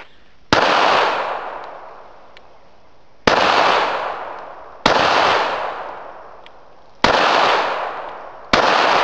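Kahr CW40 .40 S&W pistol firing five single shots with uneven gaps between them, each sharp report followed by a long echoing tail.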